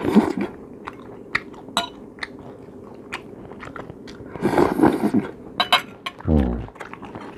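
A man chewing roast beef close to the microphone, with many short wet mouth clicks and smacks, and a short low hum about six seconds in.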